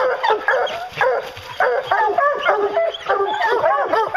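A pack of bear hounds baying and yelping together at the foot of a tree, many voices overlapping without a pause. This is tree barking: the hounds are holding a black bear up the tree.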